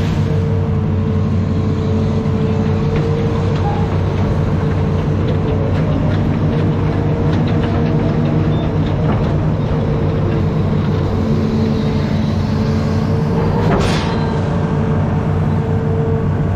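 Hitachi Zaxis 210 amphibious excavator's diesel engine running steadily as the machine works its arm and bucket, with a tone that strengthens and fades as the load changes. One sharp knock about fourteen seconds in.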